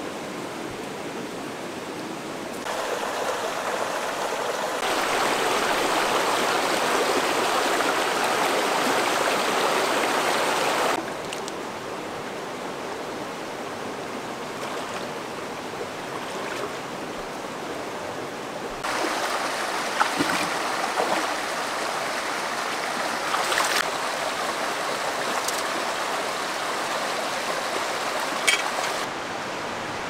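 River water rushing steadily over rocks, getting louder and quieter in several sudden steps. A few short sharp knocks or splashes stand out in the second half.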